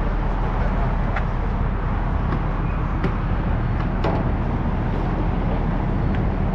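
Pickup truck engine idling: a steady low rumble, with a few light clicks and knocks over it.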